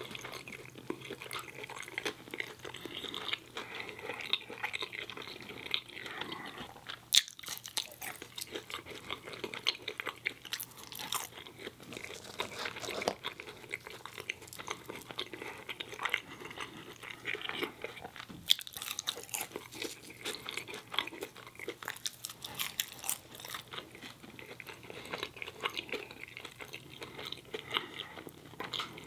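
Close-miked eating of Cajun fries dipped in ketchup: chewing and biting with many irregular wet clicks from the mouth.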